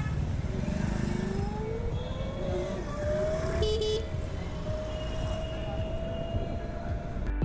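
Street traffic heard from a moving electric scooter: low wind and road rumble, with a whine that rises in pitch over the first few seconds and then holds steady. A vehicle horn toots briefly about three and a half seconds in.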